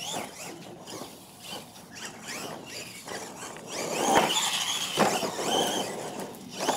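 R/C monster truck's motor and gearing whining, the pitch rising and falling over and over with the throttle. A couple of sharp knocks about four and five seconds in as the truck hits the ground.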